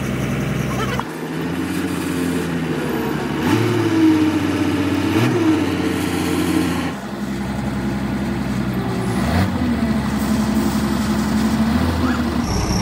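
Large engine running and revving up twice, its pitch rising and falling. The sound changes abruptly about a second in and again around seven seconds in.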